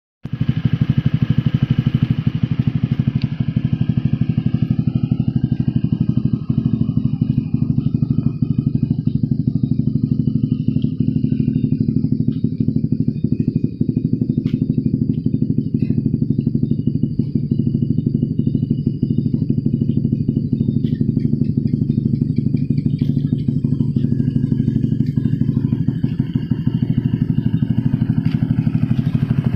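Honda Click 125i scooter's single-cylinder engine idling steadily through an aftermarket SC exhaust pipe, its pitch unchanging.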